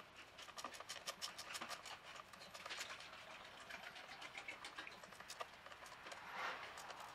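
Faint, quick, irregular clicking of a T-handle Torx driver turning the screws out of a plastic air filter box cover.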